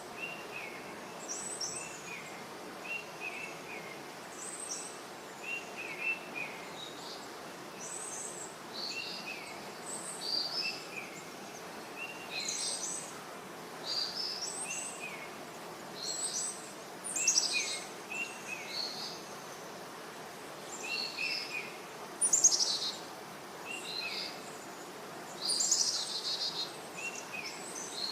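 Birds calling: short falling notes repeated every second or so, mixed with higher, louder chirps that come in clusters, over a steady background hiss.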